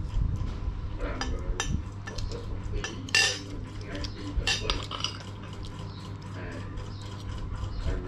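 Metal spoons clinking and scraping against china plates and bowls while eating, a handful of sharp clinks, the loudest about three seconds in.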